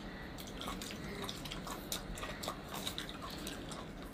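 Faint scattered drips and small wet ticks: liquid dripping from a geoduck's siphon into a bowl of chili flakes.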